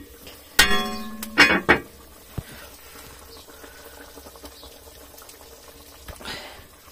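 A metal pot lid is lifted and scraped against the rim with a loud ringing squeal of steady pitch, followed by a second rougher clank. Underneath, a beef stew simmers quietly in the pot.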